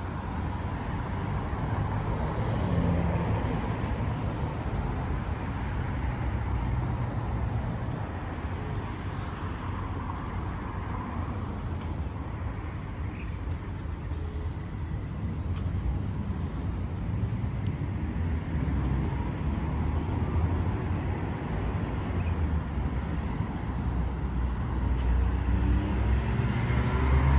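Road traffic: a steady rumble of cars passing on the street, with one vehicle's engine rising in pitch and getting louder near the end as it speeds up.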